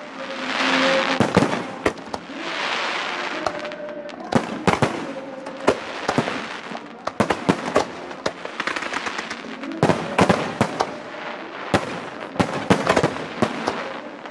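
Aerial fireworks shells bursting overhead in a string of sharp bangs, with two longer crackling, hissing swells in the first four seconds.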